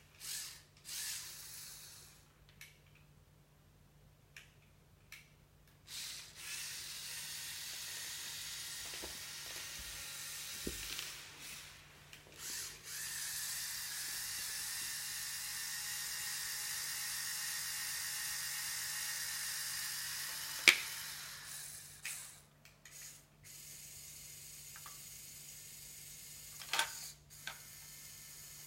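Lego Technic excavator's small electric motors and plastic gears running in long stretches with a steady whir, stopping and starting, with a few sharp plastic clicks, the loudest about two-thirds of the way through.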